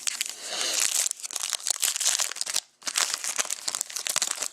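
Crinkling and tearing of a trading-card pack wrapper as a pack of hockey cards is opened by hand, with a brief pause about two-thirds of the way through.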